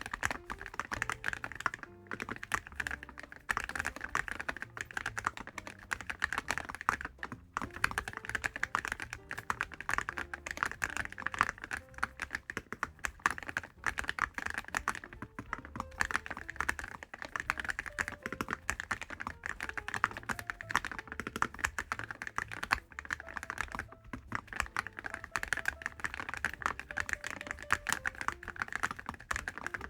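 Continuous fast typing on a mechanical keyboard fitted with Awekeys full-metal keycaps: white-copper caps with a gold or titanium coating, on Cherry MX-style switches.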